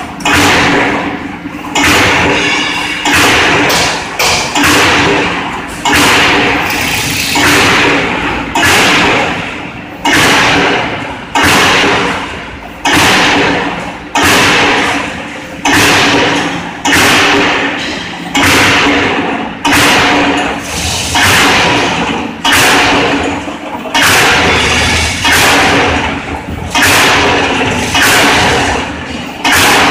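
NCSK125_D CNC hydraulic punching machine punching holes in a steel sieve plate, one stroke about every second and a half. Each stroke is a sudden burst of noise that fades over about a second, over a steady hum.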